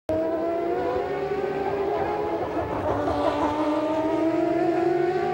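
Two McLaren-Honda MP4/5 Formula One cars, their 3.5-litre Honda V10 engines running at high revs, the pitch climbing slowly and steadily as they accelerate.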